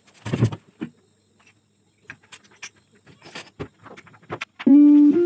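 A scatter of short, light clicks and knocks, then keyboard music with sustained chords starts near the end.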